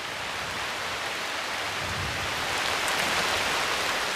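Heavy monsoon rain pouring down in a steady hiss, growing a little louder about three seconds in.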